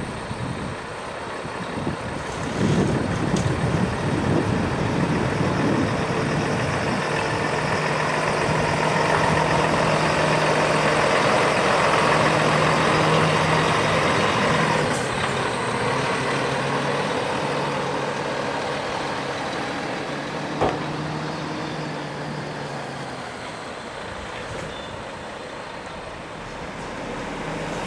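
Volvo FH 440 truck's six-cylinder diesel running at low revs as the rig drives slowly past, with road noise. It grows louder as the truck comes closest, about halfway through, then fades as it pulls away. A single sharp click about three-quarters of the way in.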